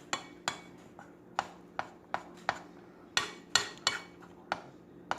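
Spoon repeatedly knocking and clinking against the side of a mixing bowl while thick fudge mixture is stirred, in a string of sharp, uneven taps about two or three a second.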